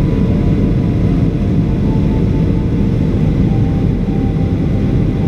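Steady low cabin rumble of a Boeing 737-800 in flight, from its CFM56-7B jet engines and the airflow, heard from a window seat beside the wing.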